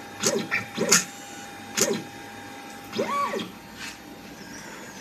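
Stepper motors of a 4-axis soldering robot making short point-to-point moves of the soldering head. Each move is a brief whine that rises and falls in pitch, four of them, the last, about three seconds in, longer and higher. A thin steady high tone runs underneath.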